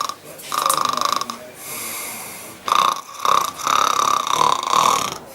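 A man snoring: a series of buzzy snores, one about half a second in, a breathier one around two seconds, then several in close succession in the second half, the longest lasting over a second.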